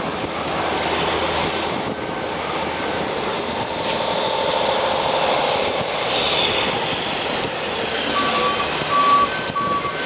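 Steady road and engine noise of a moving vehicle. About eight seconds in, a truck's reversing beeper starts, beeping repeatedly at a steady pitch.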